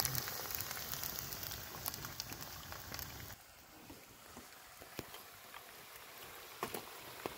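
Sliced potatoes sizzling in hot oil in a disc pan: a dense, crackling hiss that drops to a fainter sizzle with scattered pops about three seconds in.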